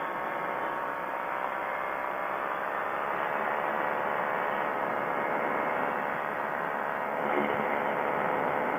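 Quicksilver ultralight aircraft in cruise: a steady engine and propeller drone with a hum of even tones over a wash of wind noise, holding constant with a slight swell about seven seconds in.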